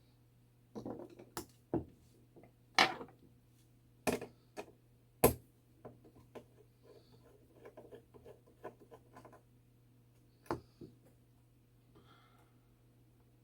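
Clicks and taps of small parts and hand tools on a clock movement being taken apart, with several sharp knocks in the first five seconds and one about ten and a half seconds in, and a run of light ticking between about six and nine and a half seconds.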